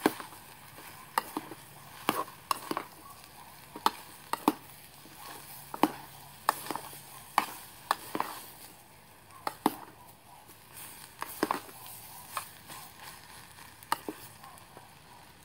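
Metal spoon scraping and clinking against a steel canteen cup as fried rice is stirred, in irregular sharp clicks about once or twice a second, over a faint sizzle of the food frying.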